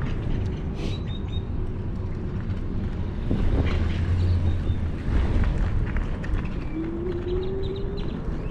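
Wind buffeting the GoPro microphone while an electric scooter is ridden across a rough parking lot, with rattles and knocks from bumps in the pavement. Brief bird chirps come in now and then, and a faint whine rises near the end.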